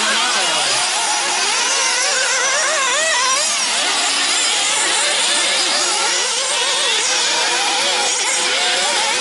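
Several nitro RC buggies' small two-stroke glow engines running together, each whining up and down in pitch as the cars accelerate and brake around the track.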